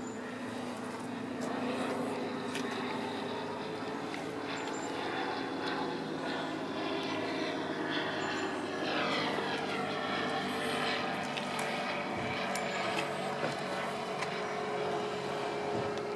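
A steady engine hum, with a set of sweeping tones about halfway through as something passes.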